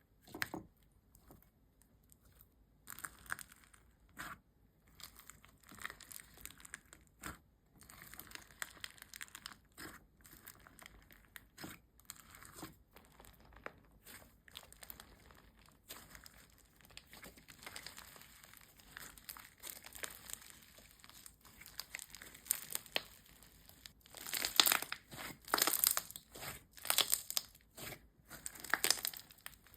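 Slime being squished, pressed and stretched by hand, giving a string of short sticky clicks and crackles. They grow denser and louder in the last few seconds.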